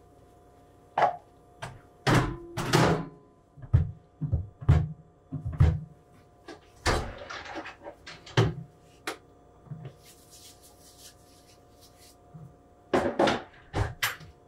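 Kitchen handling noises: cups, a bowl and other containers being picked up, knocked and set down on a counter, a string of sharp knocks and clatters with some rustling between them, loudest a couple of seconds in and near the end. A faint steady hum runs underneath.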